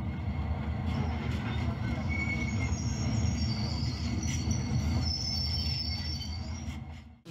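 HO scale model diesel locomotives running along the track: a steady low rumble of their motors and wheels on the rails, with a faint high whine coming and going in the middle. It fades away near the end.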